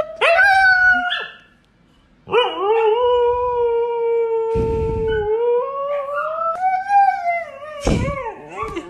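Siberian husky howling: a short cry in the first second, then, after a brief pause, one long steady howl that rises in pitch near the end and falls away. A thump follows near the end.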